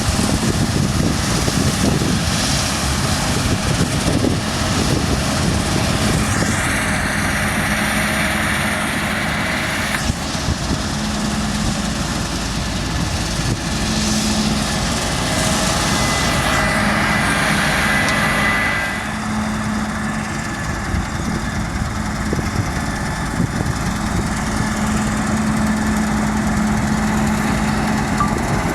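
Claas Lexion 7600 combine harvester running steadily as it cuts beans, a constant machine drone with a steady hum. Twice a louder, higher hiss rises for a few seconds.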